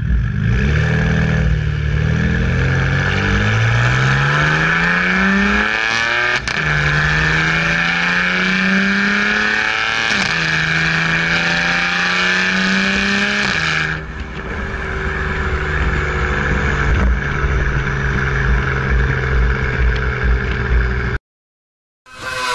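BMW F82 M4's twin-turbo straight-six heard through an Fi Exhaust catless pipe and valvetronic catback with quad tips, accelerating hard: the exhaust note climbs, drops at each upshift and climbs again, then settles to a steady note about fourteen seconds in.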